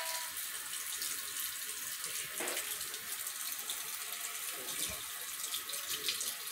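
Water running from a bathroom faucet into the sink basin: a steady hiss.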